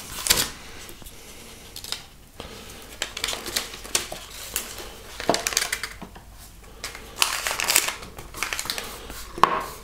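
Brown paper crinkling and rustling in short bursts, with quieter gaps, as it is folded and pressed around a small wooden block.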